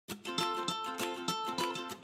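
Background music of quick plucked-string notes, starting abruptly out of silence.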